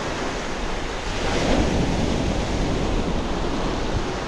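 Sea waves breaking and washing up a pebble beach, a steady wash of surf that swells louder about a second and a half in, with wind buffeting the microphone.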